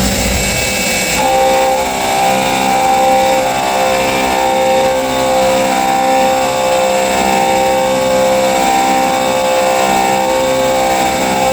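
CNC milling machine's end mill cutting aluminium on a high-speed dynamic toolpath: a steady machining whine that grows stronger about a second in and then pulses at an even rate as the cut repeats.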